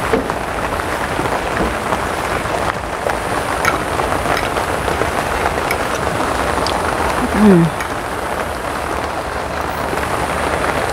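Steady rain-like hiss, with a few light clicks of a fork on a plate. About seven and a half seconds in, the eater makes a short 'mmm' that falls in pitch, the loudest sound here.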